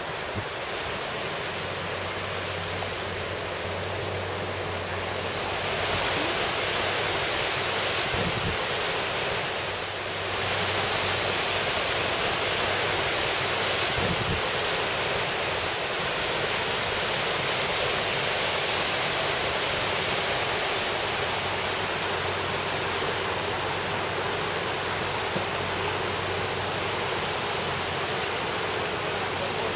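Mountain torrent's water rushing over a gravel and rock bed: a steady hiss with no breaks, getting a little louder about six seconds in. A faint low steady hum sits underneath.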